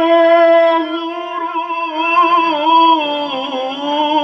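A man reciting the Quran in melodic tajweed style into a handheld microphone, holding one long drawn-out note on the word "hum" of "wa la hum yunzarun". About two seconds in, the held note breaks into wavering, trilled turns in pitch.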